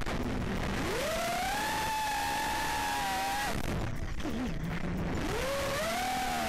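FPV quadcopter's electric motors and propellers whining from the onboard camera, over a steady rush of wind. The pitch rises sharply as the throttle is punched about half a second in, holds, drops away about three and a half seconds in, then climbs again near the end.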